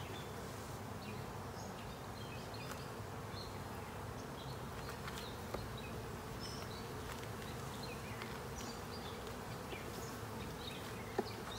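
Honey bees humming steadily from an opened hive with its frames exposed, the continuous buzz of the colony. A short click sounds near the end.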